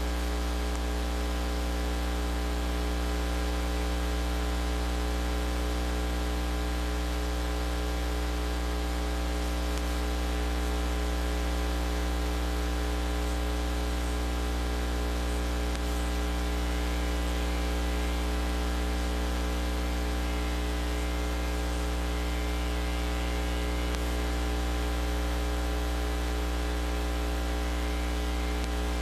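Steady electrical mains hum with a stack of overtones, under a constant hiss, unchanging throughout.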